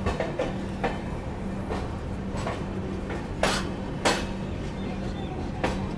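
Passenger train pulling slowly out of a station: the wheels give irregular sharp clacks over rail joints and points, the two loudest about three and a half and four seconds in, over a steady low hum from the coach.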